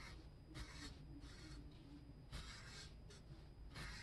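Copic W2 warm gray alcohol marker stroking across toned gray drawing paper: about five short, faint scratchy strokes as it lays down a light transition tone.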